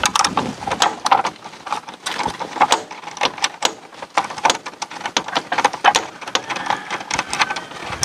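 Hand ratchet clicking in a rapid, uneven series of sharp clicks as a 14 mm muffler mounting bolt on a Honda ADV 150 scooter is wound out by hand.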